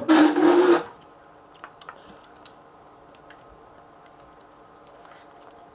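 Faint, scattered small clicks and taps of tools and plastic parts being handled on an opened Nokia Lumia 900 phone during reassembly. A short, loud, breathy burst comes right at the start.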